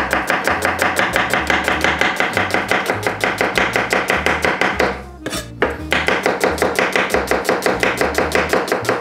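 Chef's knife finely slicing onions on a wooden butcher-block cutting board: a fast, even run of blade knocks against the wood, several a second, with a short break about five seconds in.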